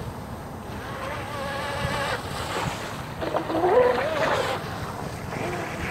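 Radio-controlled model boat's motor whining as it speeds across the water, the pitch rising and falling, loudest about four seconds in, over wind and lapping water.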